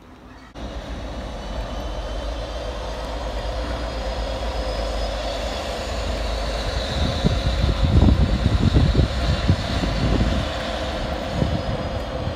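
Freight train passing close by: a locomotive's steady running drone and the rumble of its wheels, with heavy low knocks from wheels over rail joints. The sound starts suddenly about half a second in, and the knocks are loudest about two-thirds of the way through.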